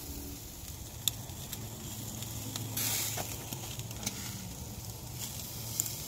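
Steak and sausage kebabs sizzling on a charcoal grill as their fat and juices drip onto the coals: a steady hiss with scattered sharp pops. A brief louder hiss comes about three seconds in.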